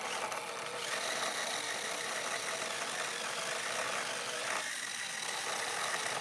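Toy remote-control car's small electric motor and gearbox running with a steady whine, stopping abruptly at the end.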